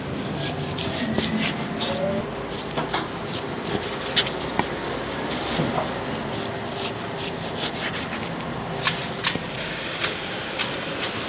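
Chef's knife slicing through a raw beef top blade into steak portions, with irregular sharp taps as the blade meets the cutting board, over a steady background hiss.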